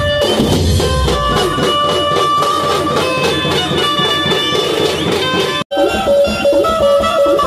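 A Chhattisgarhi dhumal band playing loud live music, melody lines over drumming. The sound drops out for an instant about five and a half seconds in, then the music carries on with a short repeated melodic phrase.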